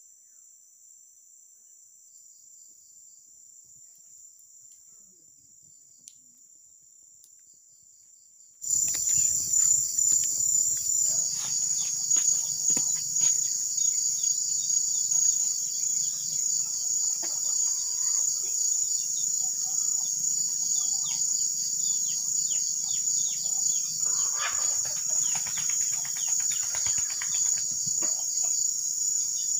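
Forest insect chorus: a steady, high-pitched trilling that is faint at first and jumps much louder about nine seconds in, with a low hum and scattered light ticks beneath it.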